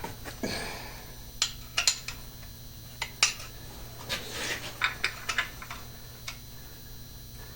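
Steel hand tools and sockets clinking and clattering against each other in irregular light knocks, as from sorting through a tool tray for the right socket.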